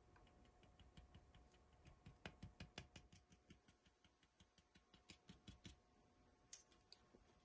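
Faint, quick fingertip taps on the plastic RAM Mount EZ-Roller tablet holder, knocking it to bring air bubbles out of freshly poured two-part gel. The taps come several a second for about five seconds, with a few more near the end.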